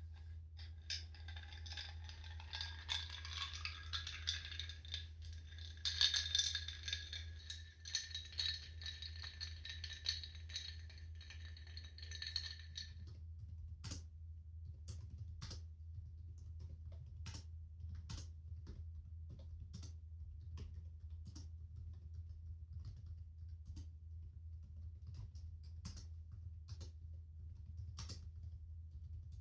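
Laptop keyboard typing: irregular key clicks, about one or two a second later on, over a steady low hum. For the first dozen seconds a high ringing, rattling sound of several tones runs along with it. One of its tones rises at first, and the sound stops abruptly about 13 seconds in.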